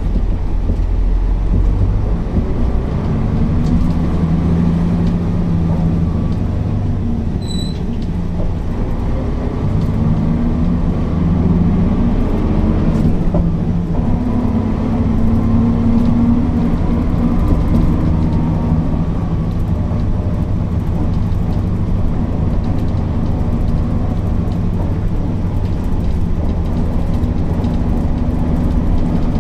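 Mercedes-Benz O408 bus's diesel engine running under way, its pitch rising and falling several times as the bus accelerates and eases off.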